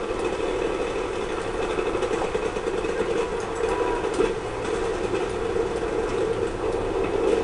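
First-person-shooter game audio: a steady mechanical, vehicle-like rumble of battle ambience with a few faint scattered clicks.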